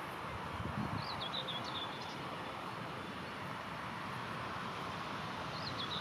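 A small songbird sings a short twittering phrase of high, quick up-and-down notes about a second in, and again near the end. Under it is a steady outdoor background hiss.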